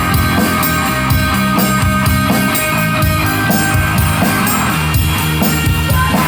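Rock band playing live, with guitar over a steady, driving drum-kit beat.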